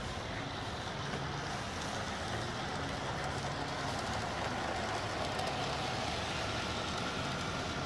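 Garden-scale model steam locomotive and freight cars running along the track: a steady whir of motor and wheels on rails, growing a little louder as the train passes close.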